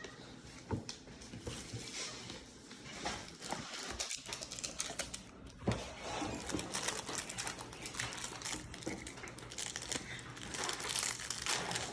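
Crinkling and rustling of a foil Magic: The Gathering booster pack wrapper being torn open and handled, with many small clicks and card-handling sounds, getting busier about halfway through.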